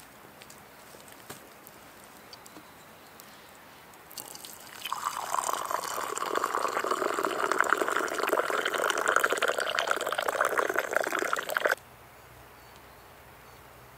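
A thin stream of liquid poured from a height into an earthenware cup, splashing and filling steadily. It starts about four seconds in, runs for about seven seconds and stops abruptly.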